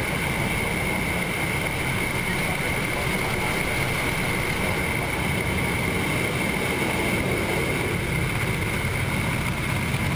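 Steady noise of a Boeing 777F climbing just after takeoff: engine and airflow noise with a steady high-pitched whine on top.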